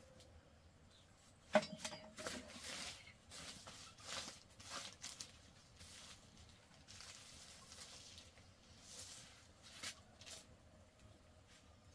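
Fresh green leaves rustling and crinkling in irregular short bursts as they are gathered up off a plastic tarp and out of a plastic basket, with one sharp knock about a second and a half in.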